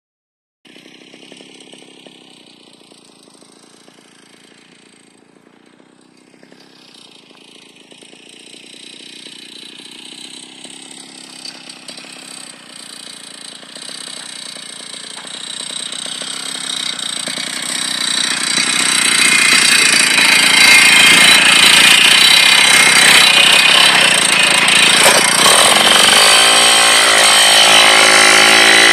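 Tomos Targa moped's 49cc two-stroke engine running, growing steadily louder over the first twenty seconds. Near the end its pitch swings up and down as the moped gets under way.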